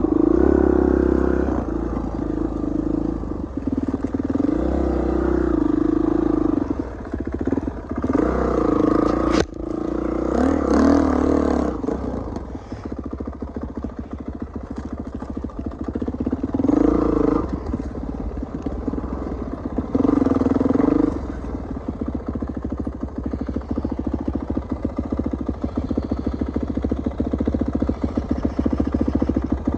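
Kawasaki dirt bike engine running on the trail, the throttle opened in repeated surges and eased off between them, dropping to low, choppy running for the last several seconds. A single sharp knock sounds about nine and a half seconds in.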